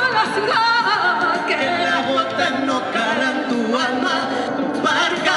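A woman and a man singing live into microphones over musical accompaniment, amplified through a PA, the voice wavering in a sung melody.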